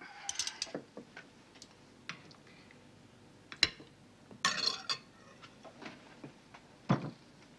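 Knife and fork clinking and scraping on a dinner plate, with scattered light clicks, a short scrape past the middle and a duller knock near the end.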